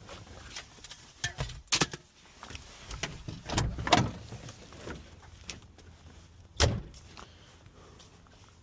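A scattered series of knocks and clunks, hard objects being handled and set down, the loudest about four seconds in and another near seven seconds.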